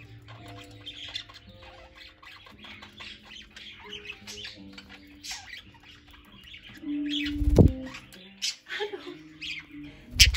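A flock of budgerigars chattering in a steady stream of short, quick chirps and warbles. A loud thump with a squawk comes about seven and a half seconds in, and a sharp click near the end.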